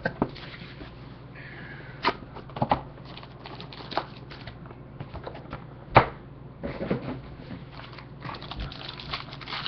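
A trading-card box and its cards being handled on a desk: the lid is lifted and the contents slid out and set down, with scattered taps and clicks, a short rustle and a sharper knock about six seconds in. A low steady hum runs underneath.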